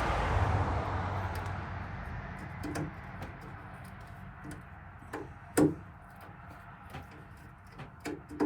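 Hand-tool work on a cupboard hinge: scattered metallic clicks and knocks of a Leatherman multi-tool being used as a screwdriver on the hinge screws, the loudest knock about halfway in. A rushing noise fades away over the first couple of seconds.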